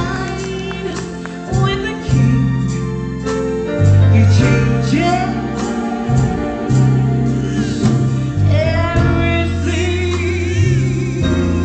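Live gospel music: a woman singing into a microphone over keyboard accompaniment with held bass notes, her voice wavering in a wide vibrato near the end.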